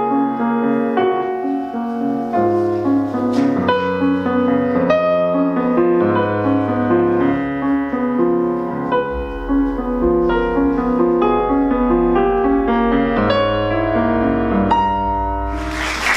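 Solo grand piano, a Picone, played in a classical style, with a deep bass note held under the melody from about halfway through. Applause breaks out just before the end as the piece finishes.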